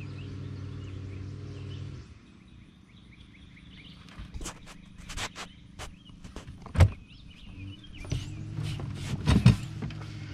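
Knocks, clatter and thumps of someone moving about in an aluminum jon boat, feet and gear striking the hull as a catfish is put over the side. A steady low hum fills the first two seconds, and a heavy thump stands out near the middle, with more knocks and thumps toward the end.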